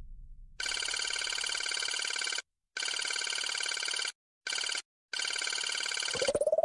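Rapid electronic trilling beeps like a phone ring, in four bursts of uneven length with short silences between, sounding with the on-screen file download. Near the end a tone rises in pitch and then holds steady.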